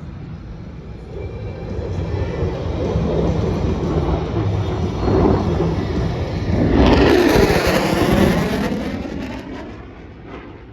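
An aircraft passing low overhead: its engine noise swells to a peak about seven seconds in, with a sweeping, shifting pitch, then dies away.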